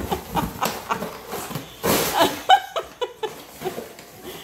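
Cardboard box being tugged, crumpled and torn by an Alaskan Malamute and a Siberian husky, with scraping and rustling noises and a short vocal sound about two and a half seconds in.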